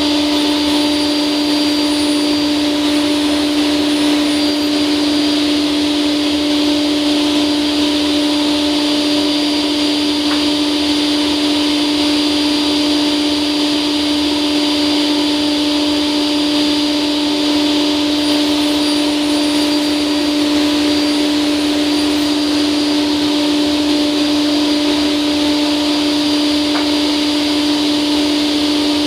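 Felder Hammer K3 sliding table saw running at full speed, a loud steady whine that holds one pitch after spinning up just before.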